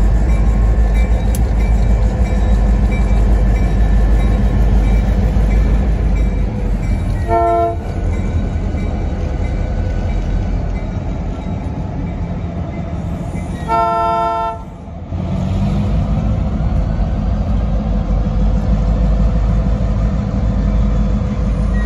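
Diesel locomotives running as they move slowly past, their engines a heavy, steady rumble. The air horn sounds two short blasts, about seven and fourteen seconds in, and starts a third right at the end.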